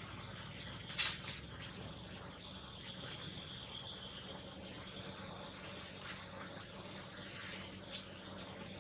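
Insects droning steadily in high-pitched bands, with a few brief sharp crackles over them, the loudest about a second in.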